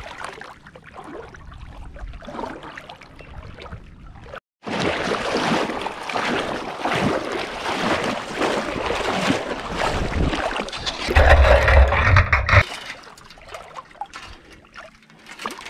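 Water sloshing and splashing around a wire crab scoop net swept through shallow water, heard close up from a camera on the net's pole. It grows much louder after about four and a half seconds, with the heaviest splashing just before twelve seconds as the net scoops up a blue swimmer crab, then quietens.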